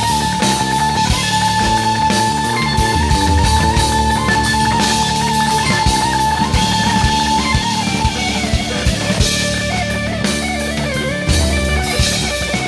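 Background rock music with guitar and drums; a long held high note gives way to a moving melody about eight seconds in.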